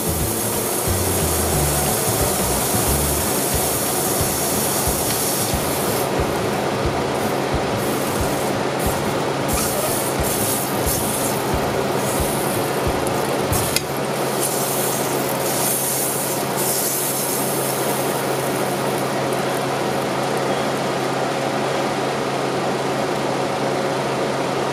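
Butter sizzling and hissing steadily as a heated knife melts its way through the block. There is a single sharp click about fourteen seconds in.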